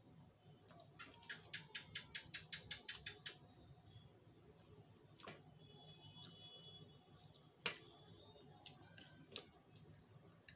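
Near silence broken by soft clicks from eating and handling the plate and drink bottle: a quick run of about a dozen clicks about a second in, then a few single clicks spread apart.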